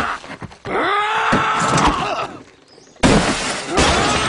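A cartoon character screaming in a rage: two long drawn-out yells, the second starting about three seconds in, louder and harsher. A few sharp knocks come right at the start.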